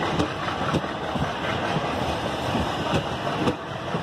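Indian Railways passenger coaches rolling past close by: a steady rush of running noise, with the wheels clattering over rail joints in scattered knocks.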